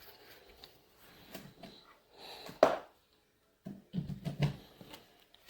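Handling noises: soft rustling, one sharp knock about two and a half seconds in, then a short run of low bumps a second or so later.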